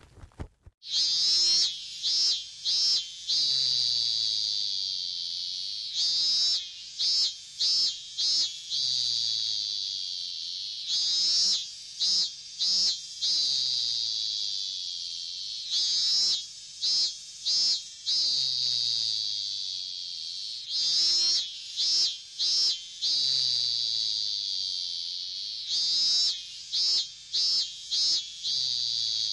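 A high-pitched buzzing animal call that repeats in a loop about every five seconds. Each cycle is a few quick stuttering pulses followed by one long buzz that slowly fades.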